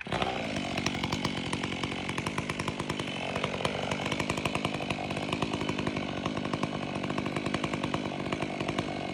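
Stihl 500i two-stroke chainsaw running steadily, starting abruptly at the beginning.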